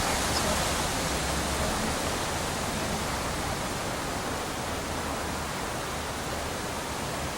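Steady, even hiss of outdoor background noise, with no gunshots or other distinct sounds.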